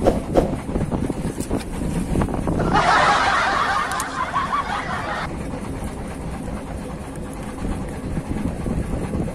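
Wind buffeting the microphone over choppy sea, a steady low rumble. Near the middle comes a hiss of about two and a half seconds that starts and stops abruptly.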